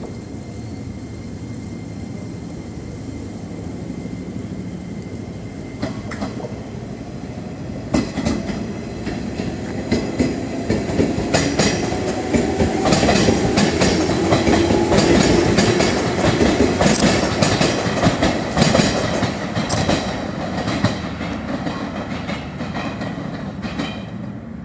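A JR 103 series electric commuter train pulling out of the station. It starts as a low rumble; from about eight seconds in the wheels clack over the rail joints and a motor whine rises as it speeds up past. The sound is loudest midway and eases off near the end.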